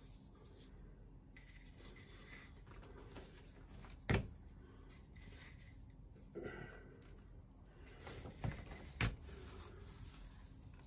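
Quiet room tone broken by a few short taps and clicks as a glass jar of crushed crackers is handled and crumbs are sprinkled by hand over a casserole. The sharpest tap comes about four seconds in, and two more a little after eight seconds.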